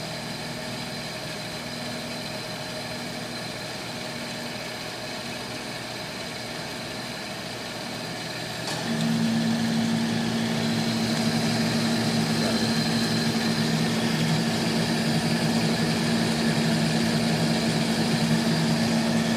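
Electric drive motors of a Gardner 2V18-18 vertical double end opposed disc grinder running with a steady hum; about nine seconds in there is a click and the machine becomes markedly louder, with a stronger hum, as the carrier and the top and bottom discs come on.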